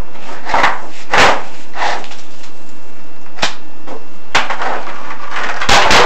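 Irregular knocks and scrapes, about six in a few seconds, over a steady hiss: a chimney inspection camera being lowered down a furnace flue, bumping and scraping against the flue walls.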